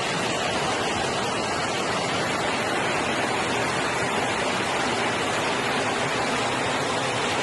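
Floodwater rushing down a street in a steady, loud torrent, more water than the storm drains can take.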